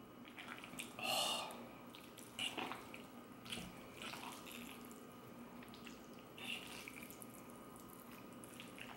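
Fork working through pasta in a creamy Alfredo sauce on a ceramic plate: a few soft wet, sticky squelches and light clicks, the loudest about a second in.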